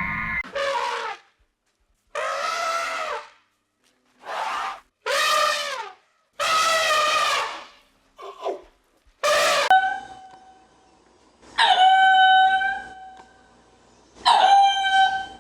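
An animal calling over and over: about nine short cries, each roughly a second long with brief silences between them. The later calls hold one steady pitch, like a small horn.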